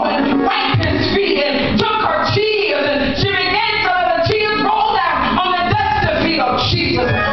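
A woman singing into a microphone over a PA, with music playing behind her.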